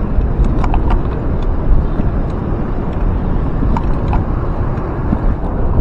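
Steady low rumble of wind on the microphone and road noise from a moving bicycle, with a few light clicks and rattles from the bike, several of them in the first second.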